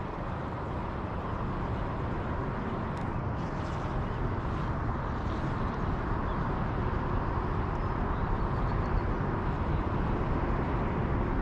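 Steady rushing outdoor background noise, heaviest in the low end and growing a little louder over the stretch, with a few faint ticks a few seconds in.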